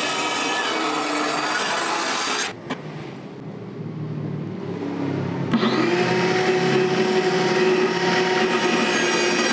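Handheld electric circular saw running and cutting through wooden sheet board. The sound drops off suddenly about two and a half seconds in to a quieter low hum, and the saw is cutting at full loudness again from about five and a half seconds.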